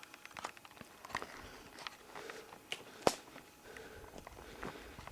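Footsteps moving through forest undergrowth, uneven rustling and crunching of leaves and sticks, with one sharp snap about three seconds in.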